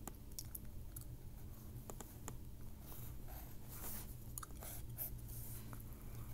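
Pencil scratching and tapping on notebook paper in short irregular strokes, with small clicks and soft rustles, over a steady low hum.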